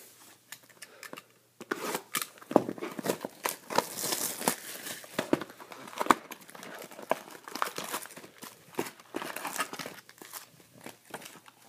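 Cardboard Topps Chrome hobby box being torn open and its foil-wrapped card packs pulled out and stacked: a dense run of tearing, crinkling and small taps that starts about a second and a half in.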